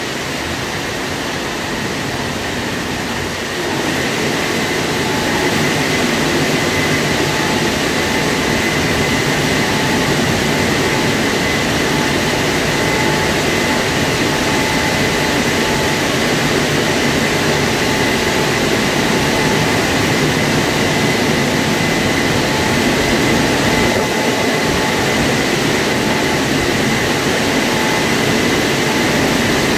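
WashTec SoftCare2 Pro rollover car wash running, its gantry travelling along the rails over the car with the brushes turning. A steady machine noise with a high whine throughout, getting louder about four seconds in as the gantry comes closer.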